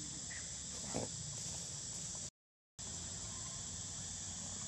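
Steady high-pitched insect drone from the surrounding woods, with one brief short sound about a second in. The sound cuts out completely for about half a second in the middle.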